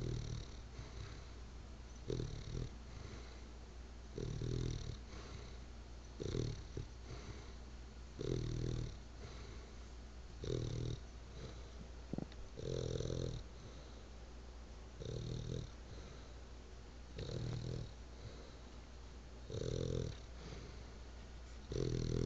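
Victorian Bulldogge snoring in its sleep, one snore about every two seconds in a steady rhythm.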